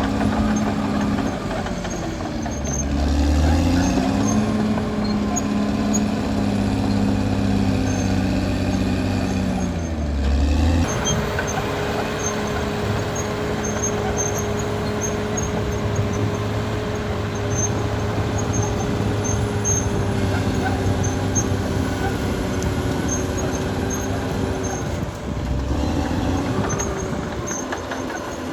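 Caterpillar D6R XL bulldozer's diesel engine running under load. Its pitch dips and recovers around 2 s and again near 10 s, then holds steady with a higher whine over it for most of the rest.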